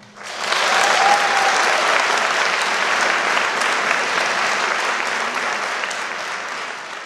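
Audience applauding, rising quickly in the first half second, then holding steady and slowly dying down near the end.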